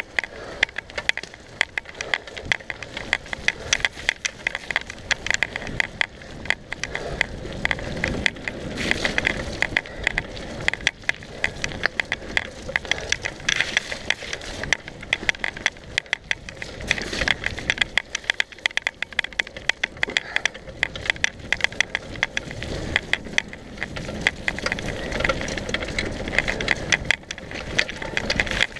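Mountain bike being ridden fast over a rough, muddy trail: continuous irregular rattling and clatter from the bike as it hits bumps, over the rumble of the tyres on dirt.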